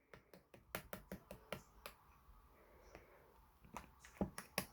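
Slime being squeezed and poked by hand, giving a quick, irregular run of sharp clicks and pops. They come thickest in the first two seconds, with a few louder pops near the end.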